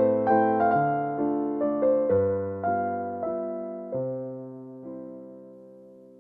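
Background music: gentle piano playing a melody over chords, ending on a held chord that fades out.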